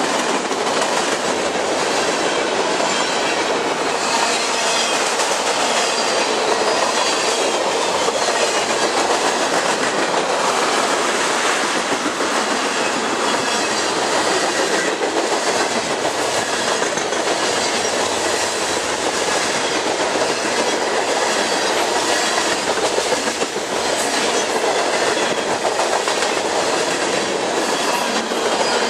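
Freight train of covered hoppers and tank cars rolling past at close range: a steady rumble and rattle of steel wheels on the rails, with scattered clicks as the wheels pass over the rail joints.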